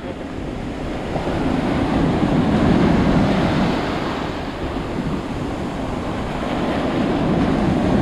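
Ocean surf washing onto a beach, with wind buffeting the microphone; the rush swells about two seconds in and again near the end.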